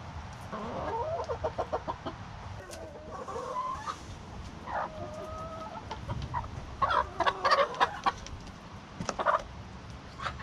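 Domestic hens clucking close by: a quick run of short clucks in the first two seconds, then a few longer, drawn-out calls, and more clucking later on.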